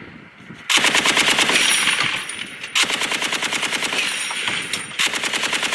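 M2 .50-caliber heavy machine gun firing three long, rapid bursts with only short breaks between them.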